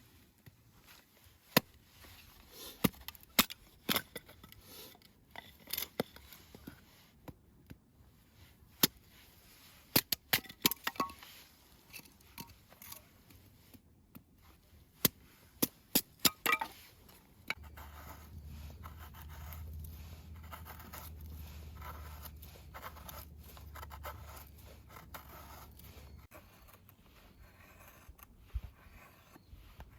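Irregular sharp clicks, snaps and scrapes of things being handled, thick for the first half and sparser later. A low steady hum comes in a little past halfway and fades out several seconds later.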